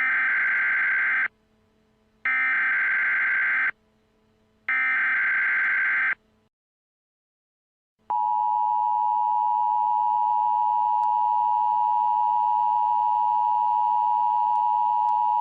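Emergency Alert System SAME header: three bursts of digital data tones, each just over a second long and about a second apart. About eight seconds in they are followed by the steady two-tone EAS attention signal, which heralds a spoken civil danger warning.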